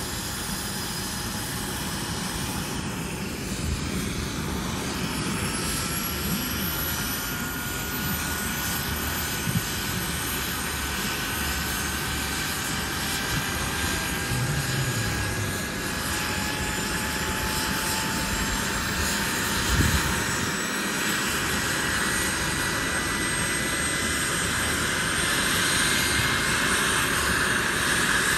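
Radio-controlled helicopter flying, its motor and rotor whine held steady and climbing slowly in pitch. There is one dull thump about two-thirds of the way in.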